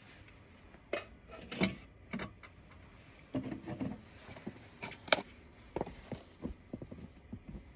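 Irregular handling noises: a string of short knocks, clicks and taps with a brief rustle or scrape a little over three seconds in, the sharpest knock about five seconds in, as objects are picked up and set down.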